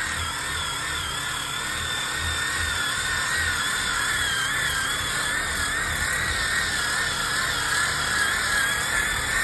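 Electric sander running steadily against a log wall, its motor whine wavering slightly in pitch as it is worked over the wood, smoothing out a high spot left by planing.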